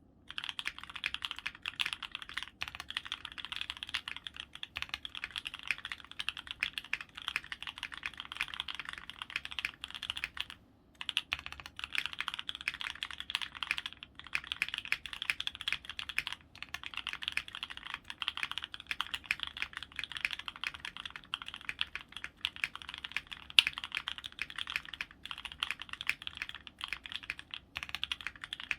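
Fast continuous typing on a custom mechanical keyboard with lubed HHHH H1 linear switches, an FR4 plate and foam-dampened case, giving a dense, even patter of key strokes with brief pauses about ten seconds in and near the end.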